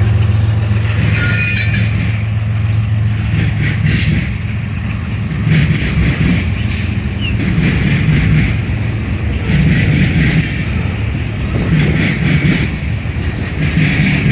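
Herzog work train rolling past: a deep diesel locomotive rumble at first, then the cars' wheels clattering over the rail diamond in repeated bursts every second or two.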